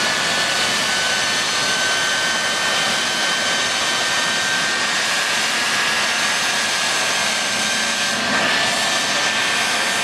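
Jet dragsters' turbine engines idling: a loud, steady rushing whine with several high steady tones, a little louder about eight seconds in.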